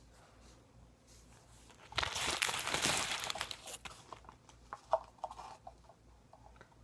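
Plastic-wrapped Dum Dum lollipops crinkling as a hand rummages through them to draw one: a dense crackle of about two seconds starting about two seconds in, followed by scattered small crinkles and clicks.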